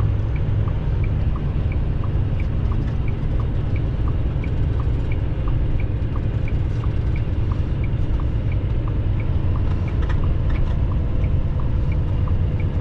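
Steady engine and road rumble inside a semi-truck's cab, with the turn signal clicking evenly throughout, its ticks alternating between a higher and a lower click as the truck takes an exit.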